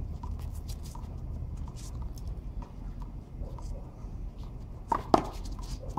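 Faint scuffing and light ticks of players' shoes on concrete, then about five seconds in two sharp smacks close together: a small rubber handball bounced on the concrete and struck hard with the server's gloved hand, the second smack the loudest.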